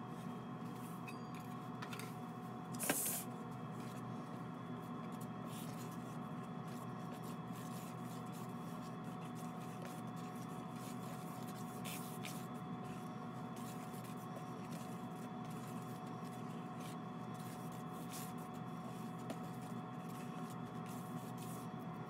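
Steady machine hum made of several fixed tones. About three seconds in there is one short, sharp clatter, and later a few faint clicks and rustles as a hand stirs dry glaze powder in a plastic bucket.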